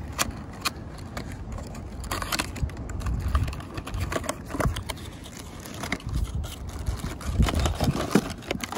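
Cardboard box and plastic packaging being handled and opened: scattered small clicks, taps and crinkles over a low rumble.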